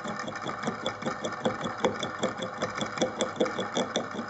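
Clarke CMD300 (Sieg X2) mini mill's spindle running with an end mill cutting into a metal workpiece, giving a steady whir with regular chattering knocks about five times a second.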